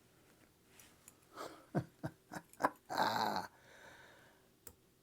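Several short clicks and knocks from a Lishi M1 pick working the pins of a Master padlock that will not yet open, then a brief hiss-like burst about three seconds in and one sharp click near the end.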